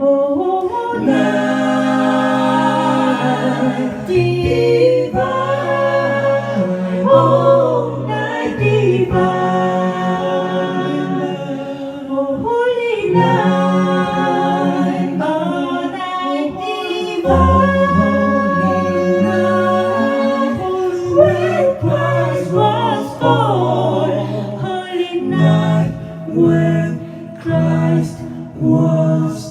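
An a cappella vocal group singing in close harmony, several voices holding chords over a sung bass line that shifts notes every second or two.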